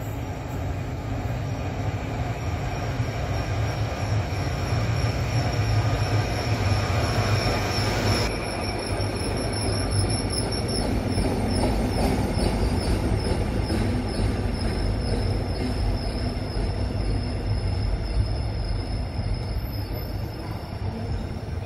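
Locomotive-hauled passenger train rolling through the station on steel wheels. A steady low rumble runs throughout, and high, thin wheel squeal sets in about eight seconds in and keeps going as the coaches pass.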